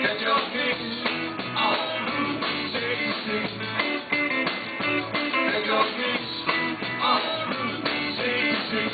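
Live rock and roll band playing with the guitar to the fore and no vocals.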